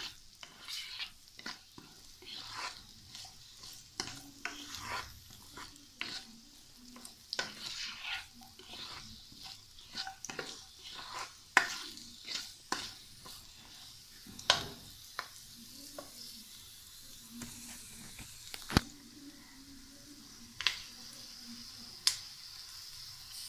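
Cubed onion and green bell pepper sizzling lightly in oil in a non-stick kadai, stirred with a plastic spoon: a steady sizzle under repeated scraping taps, with a few sharper clicks of the spoon against the pan in the second half. The vegetables are being sautéed briefly just to soften.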